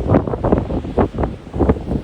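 High wind buffeting the microphone in loud, irregular gusts, several rumbling pulses a second.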